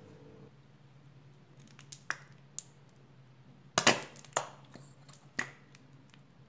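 Plastic squeeze bottle of mayonnaise being squeezed, giving a handful of short sharp pops and crackles as the sauce spurts out, the loudest about four seconds in.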